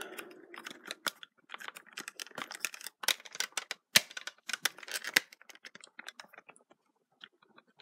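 Light plastic clicks and taps from the Power Rangers Lightning Collection Master Morpher toy being handled while its power coin is changed. The clicks come thick and fast for about five seconds, then thin out to a few faint ticks.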